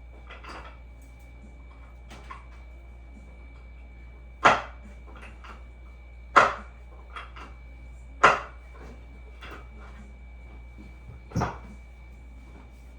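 Chiropractic micro drop table: the drop section snaps down four times, sharp clacks about two seconds apart with a short gap before the last, as a knee adjustment is given.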